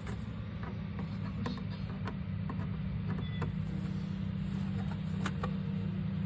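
A steady low mechanical hum runs throughout. Over it come a few light clicks and knocks as the plastic pieces of a pet-door tunnel kit are fitted together.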